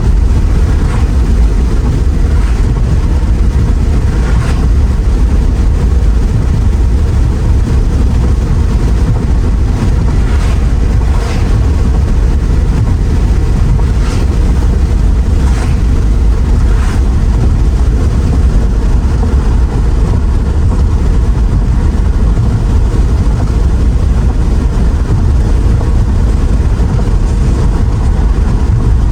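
Mercedes R129 SL500 cruising at speed: a loud, steady low rumble of road and wind noise, with a few faint brief hisses higher up.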